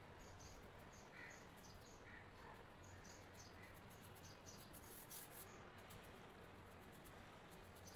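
Near silence: faint steady hiss of room tone, with a few faint short high chirps and soft ticks.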